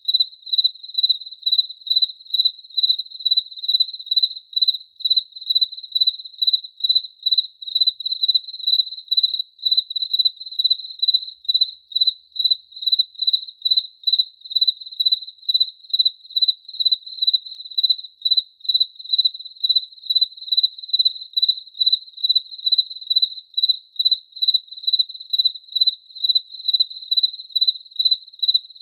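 A cricket chirping: a steady run of even, high-pitched chirps at roughly two to three a second, all on one pitch.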